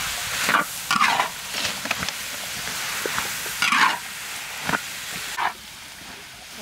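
Shredded carrots sizzling in a large wok while a long metal spatula scrapes and turns them, about six strokes. The sizzle drops away near the end.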